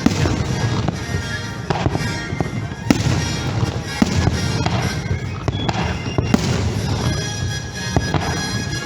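Aerial fireworks shells bursting across a lake, sharp bangs every second or two with crackling, over music playing throughout.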